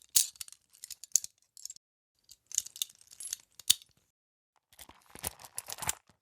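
Metal handcuffs clicking and ratcheting in three short runs of quick clicks, each run ending in a sharper click.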